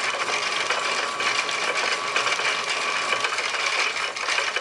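Metal lathe turning a cast brass piston blank, the tool taking a cut along its diameter: steady machine running noise with a high whine over a dense, gritty cutting hiss.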